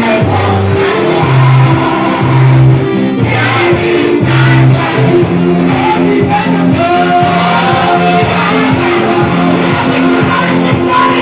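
Worship music with a band playing a bass line over a steady beat, with voices singing.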